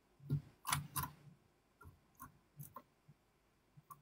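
A few faint, short clicks, irregularly spaced, strongest in the first second.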